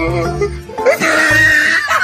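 Background music with a steady bass line and a high, wavering voice-like line.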